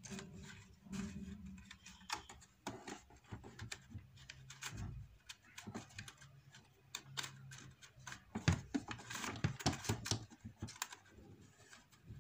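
Irregular plastic clicks and light knocks as hands push and slide the print-head carriage of an Epson XP-2100 inkjet printer, with a louder knock about eight and a half seconds in.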